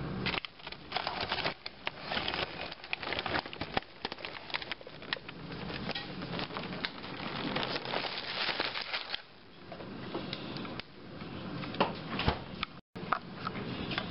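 Plastic food packaging rustling and crinkling as it is handled and taken from a refrigerator, a rapid run of small crackles and clicks with short pauses.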